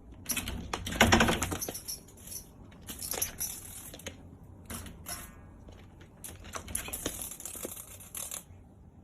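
Cat clawing at and rattling a mesh window screen, in several rough scratching bursts of a second or two each.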